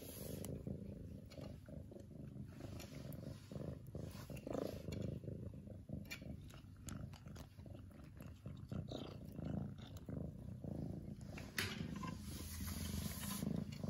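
Domestic cat purring loud and continuously, a deep rumble close to the microphone, with a few light clicks and rustles of fur moving against it, one most plainly near the end.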